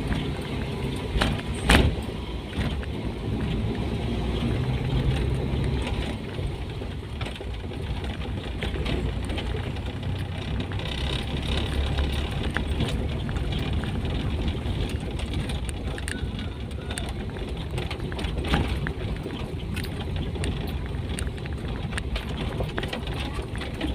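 Lowered Toyota Kijang on the move, heard from inside the cabin: a steady engine and road rumble, with a sharp knock about two seconds in and a lighter one near the end.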